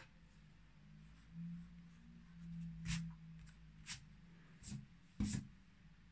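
Faint low hum with a few light, sharp taps, about four in the second half, as a pencil is handled against the paper and desk.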